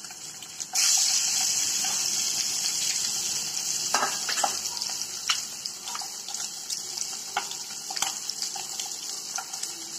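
Spice-coated boiled eggs frying in hot oil in a nonstick pan: a steady sizzle that starts suddenly about a second in as the last egg goes into the oil, with scattered pops and crackles of spattering oil.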